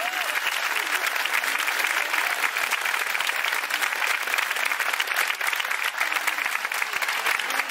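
Theatre audience applauding steadily, a dense patter of many hands clapping at the close of a dance number.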